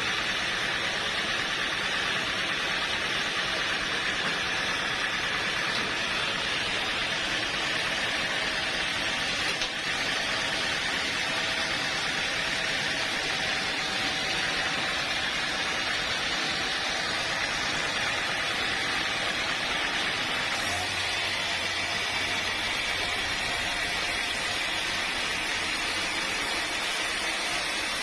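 Sawmill machinery running with a steady, hissing drone. A low hum joins about three-quarters of the way through.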